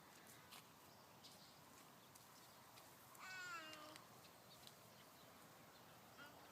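One short animal call about three seconds in, falling in pitch and lasting under a second, amid near silence with faint scattered ticks.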